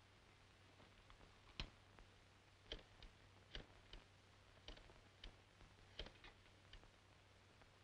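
Near silence: the low steady hum of an old film soundtrack with about a dozen faint, irregular clicks and pops.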